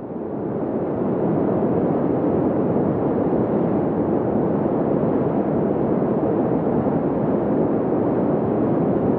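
Heavy sea surf breaking against rocky cliffs: a steady, even rush of water that fades in over about the first second.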